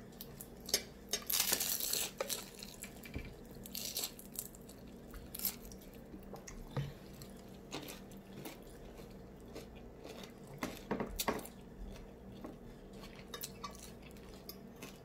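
Scattered light clinks and crackles from a crisp fried egg roll being handled and broken open over a glass plate, with a denser crackling stretch about a second in and another around four seconds.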